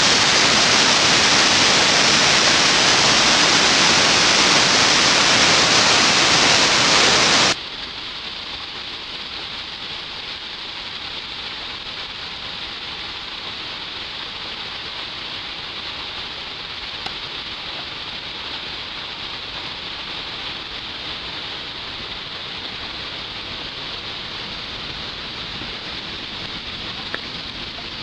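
Shiraito Falls' many thin streams pouring down the cliff: a loud, steady rush of falling water that cuts off abruptly about seven seconds in to a quieter, duller rush.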